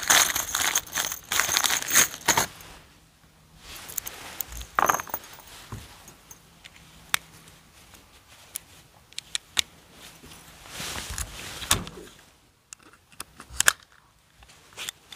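A plastic bag of aluminium pop rivets crinkling as the rivets are rummaged out, with metal rivets clinking against each other. Scattered light clicks and taps follow as single rivets are pushed into holes in a steel muffler end cap and a hand rivet tool is handled.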